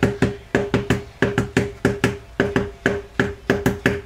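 Small metal mesh sieve being tapped rapidly and repeatedly, about five sharp knocks a second, each with a brief metallic ring, to knock loose the flour and baking powder stuck in the mesh.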